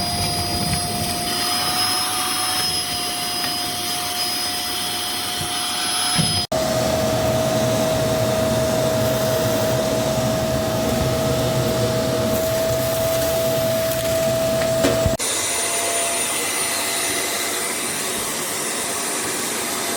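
linenix ash vacuum cleaner's motor running steadily, with an even whine over its suction noise. The sound breaks off abruptly and resumes twice, about six and fifteen seconds in, with a slight change in pitch each time.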